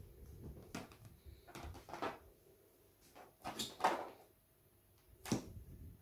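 A paint-covered rubber balloon dabbed against a stretched canvas on a table: a series of about six soft, irregular thuds as it is pressed down and lifted.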